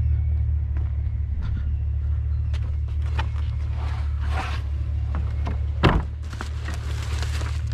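A vehicle engine idling, a steady low hum, under scattered clicks and rustles of things being handled, with one sharp knock about six seconds in.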